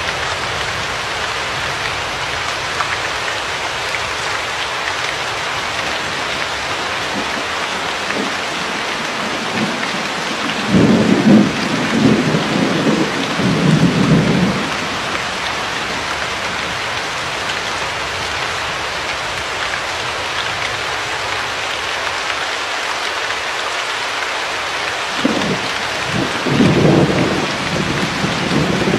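Steady rain hissing, with two low rolls of thunder: one a little over a third of the way in, lasting about four seconds, and another near the end.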